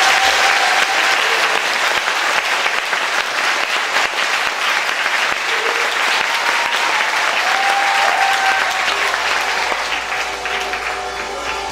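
Audience applauding steadily, with a few cheers above the clapping. Near the end, the applause eases and sustained notes from the stage's string instruments begin under it.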